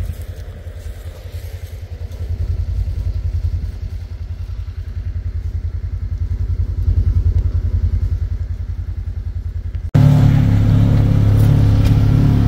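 Small vehicle engine running at low trail speed, a low, even pulsing that swells a little twice. About ten seconds in it cuts abruptly to a louder, steadier engine drone.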